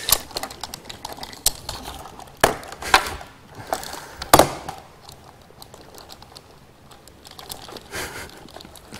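Typing on a laptop keyboard: scattered key taps and clicks, the sharpest in the first half, sparser after about five seconds.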